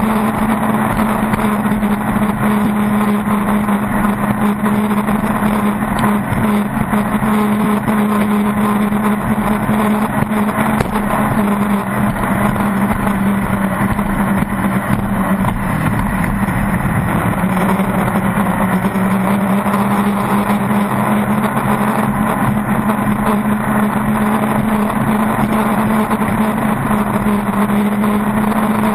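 Pro Stock circle-racing boat's engine running hard at racing speed, heard from onboard, a steady drone over a constant rush of noise. About halfway through the engine note dips briefly, then climbs back.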